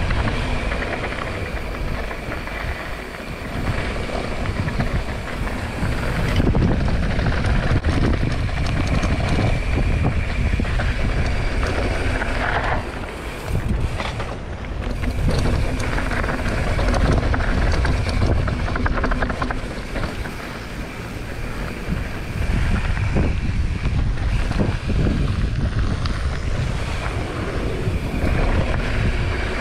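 Wind buffeting a GoPro action camera's microphone while riding a mountain bike downhill, mixed with tyres rolling and rattling over a dirt jump trail. The rush rises and falls with speed, dropping briefly a few times.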